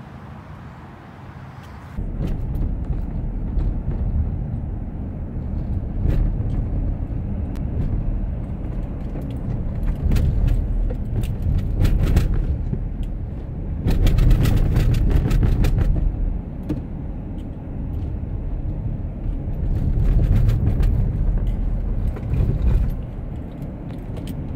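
Car cabin road and engine noise at highway speed, a steady low rumble that starts abruptly about two seconds in. Light clicking and rattling comes in spells, most noticeably a little past the middle.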